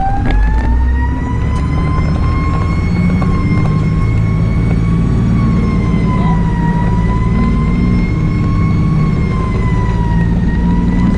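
Fire engine siren finishing its rise in the first couple of seconds, then held at a steady high pitch that dips slightly and comes back up twice, over the truck's engine running underneath.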